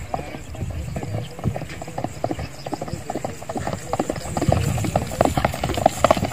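Hoofbeats of a horse galloping on dry, sandy ground, a quick, irregular run of thuds that grows louder about four seconds in.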